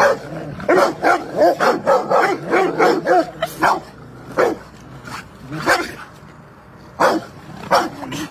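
Rottweilers barking in rough-and-tumble play: a quick run of short barks over the first few seconds, then single barks every second or so.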